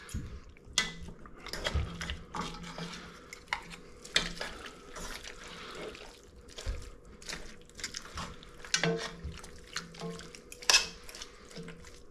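Two forks shredding braised pork shoulder in its juices in an enameled cast-iron Dutch oven: wet squelching and sloshing of meat and liquid, with irregular clicks and scrapes of the forks against the pot.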